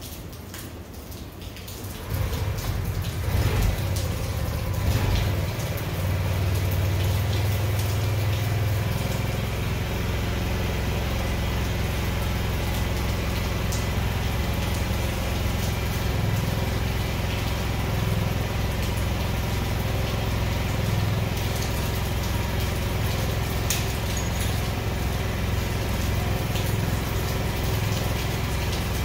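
Honda Ruckus scooter's 49cc four-stroke single-cylinder engine starting about two seconds in, running a little unevenly for a few seconds, then idling steadily on a test run after a fresh oil change.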